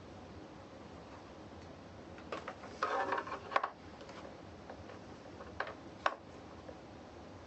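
Clicks and clatter of parts and tools being handled while an electric unicycle is reassembled after a tire change: a burst of clicking and rattling about three seconds in, then two sharp single clicks a couple of seconds later.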